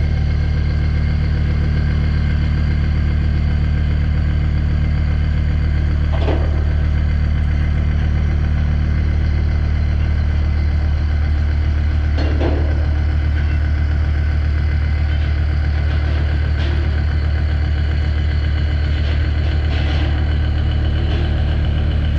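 Mazak horizontal machining centre running with a steady low mechanical hum. Brief clicks come about six and twelve seconds in.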